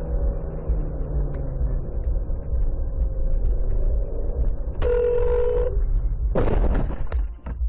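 Low engine and road rumble inside a moving car. About five seconds in a car horn sounds one steady blast of just under a second, and about a second later comes a sudden impact: the car colliding with a van that pulls out across its path.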